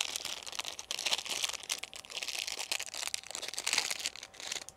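A small packaging wrapper crinkling and rustling in the hands as it is opened; the crackle stops just before the end.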